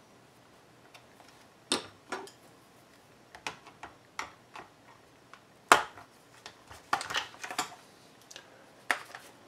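Small screws and the plastic shell parts of a Howard Leight radio earmuff clicking and clattering as the housing is unscrewed and taken apart: scattered sharp clicks, loudest about two and six seconds in, with a quick run of clicks around seven seconds.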